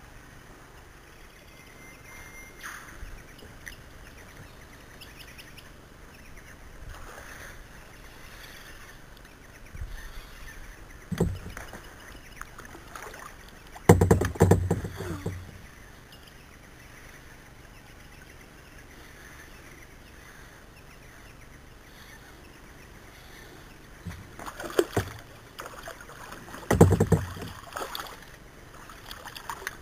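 Sounds of a fishing kayak on a river: a quiet steady background broken by sudden knocks and splashes, the loudest a cluster about a third of the way in and two more bursts near the end.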